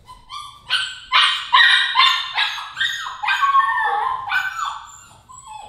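F1 Goldendoodle puppy crying in its crate on its first night of crate training: a rapid run of high-pitched yelps and whines, about two a second, most falling in pitch. They are loudest in the middle and weaken near the end.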